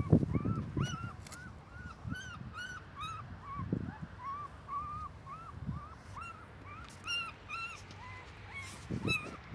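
Newborn puppies crying: a steady run of short, high, arched squeals, about two or three a second, with a few low knocks of handling near the start and end.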